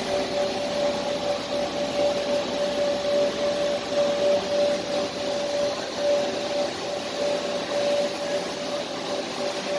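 HDPE pipe extrusion line machinery running: a steady whooshing machine noise with a constant mid-pitched hum in it, like a blower or motor, unchanging throughout.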